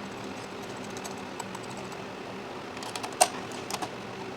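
A few light clicks and taps from small computer parts being handled, the sharpest about three seconds in, over a steady low hum.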